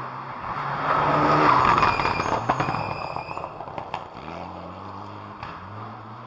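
Rally car engine revving hard on a gravel stage. The engine note rises and drops several times through gear changes and is loudest about a second and a half in.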